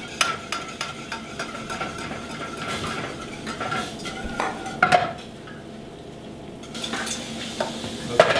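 A spoon stirring and scraping in a saucepan of red wine reduction sauce on the stove burner, with small clicks against the pan over a sizzling hiss. A sharper knock on the pan comes about five seconds in and another near the end.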